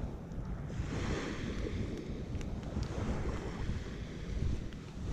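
Surf washing onto the beach, with wind rumbling on the microphone; the wash swells about a second in. A few faint clicks lie over it.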